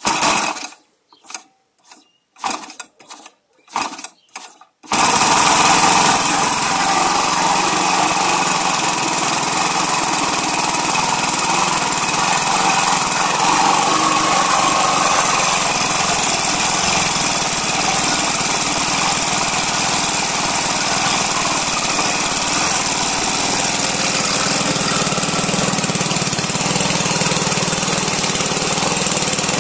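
57 cc single-cylinder four-stroke model aircraft gas engine turning a wooden propeller: it fires in several short bursts as it is started, then catches about five seconds in and runs steadily.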